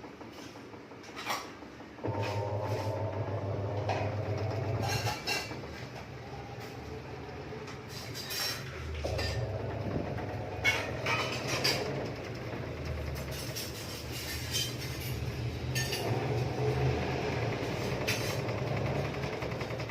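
IFB 10 kg top-load washing machine running: a low motor hum that starts suddenly about two seconds in and comes and goes in spells, with scattered clicks and knocks over it. This is the noise the owner treats as a fault.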